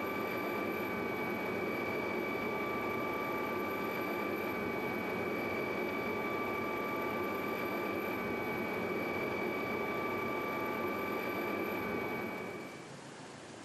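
Helicopter turbine and rotor noise, a steady rush with a high, even whine. About twelve and a half seconds in it drops away to a quieter, even hiss.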